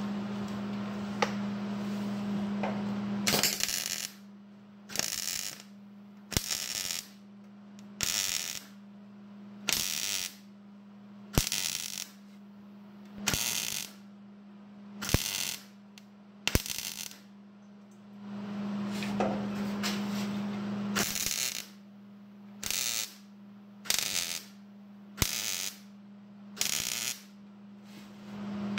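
Arc welder putting down a series of short tack or stitch welds on sheet steel. There are about fifteen crackling bursts, each about half a second long and roughly one every one and a half seconds, with a pause of a few seconds in the middle. A steady hum runs underneath.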